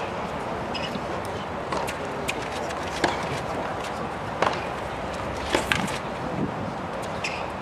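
Steady murmur of a large tennis crowd, with a few sharp knocks of a tennis ball on the hard court: one about three seconds in, another about a second and a half later, and two close together a second after that.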